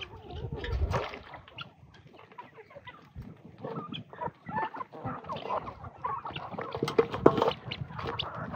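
A flock of farmyard poultry (chickens, turkeys and guinea fowl) clucking and calling while feeding at a tub, with many short pecking clicks throughout.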